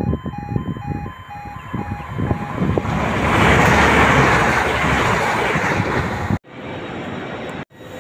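Railway level-crossing alarm beeping in two alternating tones while a train clatters up; the alarm stops about two and a half seconds in and the train passes with a loud rush until about six seconds in. The sound then cuts abruptly to a quieter, steady rumble.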